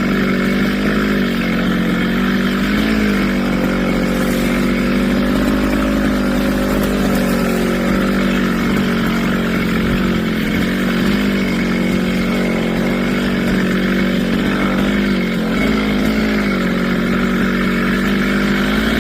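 Brush cutter's small engine running at high speed with its metal blade spinning, its pitch dipping and rising slightly a few times as throttle and load change.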